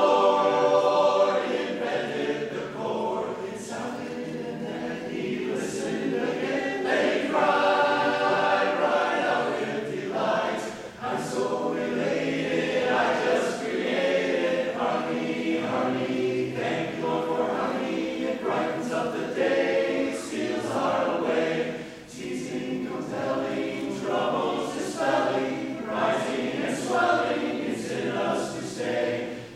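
A large men's chorus singing a cappella in close barbershop-style harmony, with brief breaths between phrases about a third and two-thirds of the way through.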